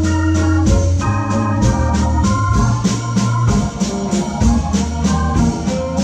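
Live blues band with the Hammond organ to the fore, playing held chords over a walking low bass line, and drums keeping a steady beat about three strokes a second.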